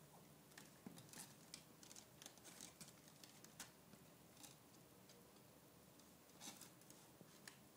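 Five-week-old kittens scrabbling and climbing in a canvas laundry basket: faint, irregular scratches and rustles of claws on the fabric and frame.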